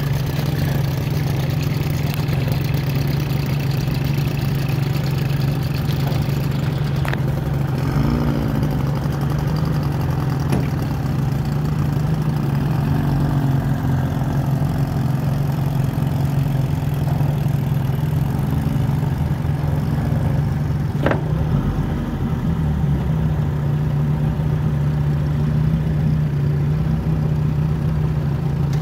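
Antique outboard motor running steadily at cruising speed, pushing a small aluminum boat along, with a constant low drone and a few slight wavers in its pitch.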